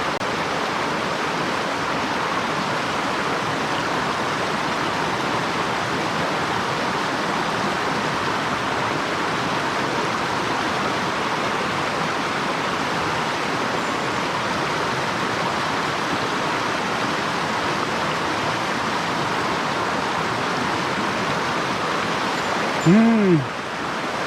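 Small mountain stream rushing over rocks, a steady, even sound of flowing water. Near the end there is a brief voiced sound, after which the water is a little quieter.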